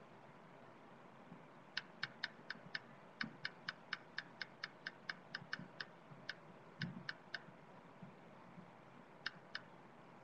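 Computer mouse clicking quickly, about four clicks a second for some five seconds, then two more clicks near the end.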